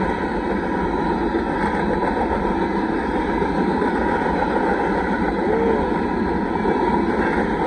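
Freight train of covered hopper cars rolling past a grade crossing: a steady, loud noise of steel wheels running on the rails.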